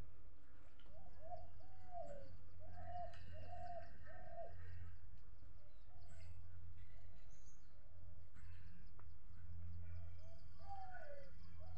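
A run of five short rising-and-falling animal calls about a second in, and a few more near the end, over a steady low hum.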